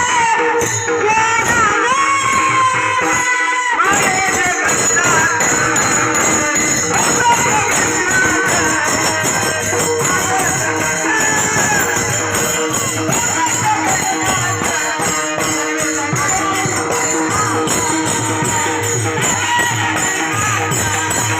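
Warkari devotional music: a singing voice over small brass hand cymbals (tal) struck in a fast, even beat, with a steady held drone beneath.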